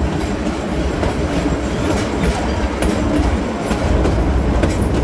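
Twin Cummins NTA-855-L4 inline-six diesels of a GE 80-ton center-cab switcher working hard, pulling up a grade. Under the steady engine rumble, wheels click over the track.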